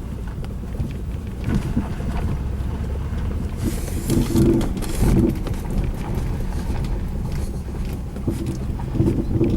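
Mazda 6 on the move: steady low road and running rumble with several short, dull knocks from the front suspension. The knock is unchanged after the right inner CV joint was repaired, so the CV joint is not its cause and its source is still unknown.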